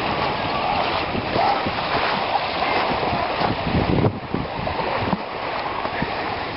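Wind buffeting the microphone in uneven gusts over small lake waves lapping at the shore.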